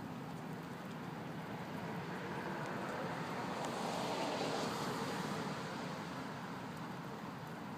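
A car passing by on the street: its tyre and engine noise builds, peaks about four to five seconds in, then fades away.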